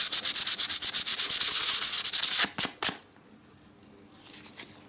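Emery paper rubbed quickly back and forth over a small brass part at about seven strokes a second, cleaning the metal before soldering. The rubbing stops a little before halfway after a few last strokes, leaving only faint light scrapes.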